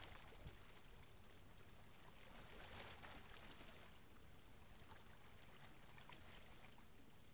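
Near silence: a faint, steady low rumble from the distant passing lake freighter Algoma Compass, with a light crackle of water about three seconds in.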